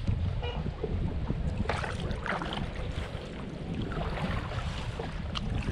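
Wind buffeting the microphone, with water lapping around kayaks and a few short knocks.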